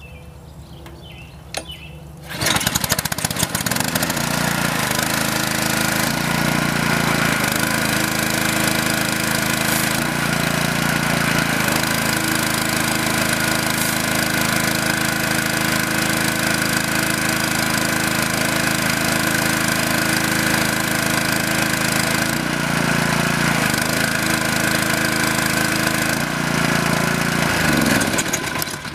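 Honda single-cylinder small engine on a pressure washer starting about two seconds in, then running at a steady speed while the wand sprays, its note shifting briefly a few times, before it is shut off near the end. It runs without surging now that the governor spring has been moved to another hole.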